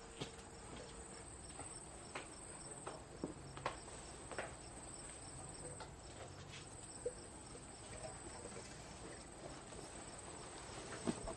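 Faint steady high-pitched insect trilling over a low background hiss, with a few scattered light clicks.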